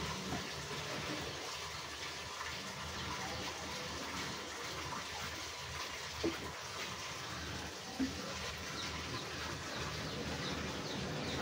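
Oil and a paste sizzling and spitting in a steel wok over a wood fire, a steady hiss with fine crackles. Two light knocks come about six and eight seconds in.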